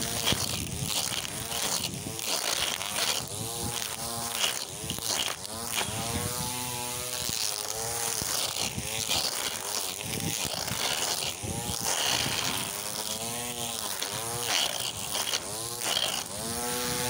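Small electric string trimmer with its motor in the head, whining as it cuts grass and weeds. The pitch rises and falls again and again every second or two, over the hiss of the nylon line swishing through the growth.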